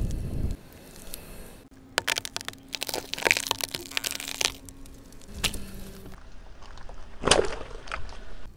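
Objects cracking and crunching as they are crushed under a slowly rolling car tyre on asphalt. A run of sharp crackles comes over a couple of seconds, then one loud crunch near the end.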